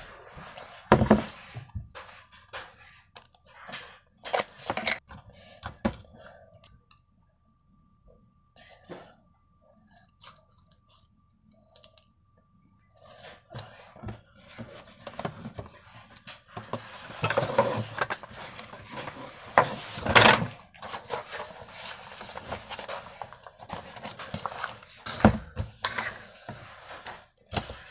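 Kitchen utensils and containers clinking, knocking and scraping as they are handled, with a quieter stretch about a third of the way in and the busiest clatter past the middle.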